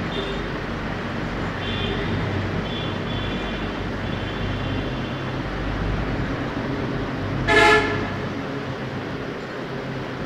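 A vehicle horn toots once, short and loud, about seven and a half seconds in, over a steady background rumble like traffic.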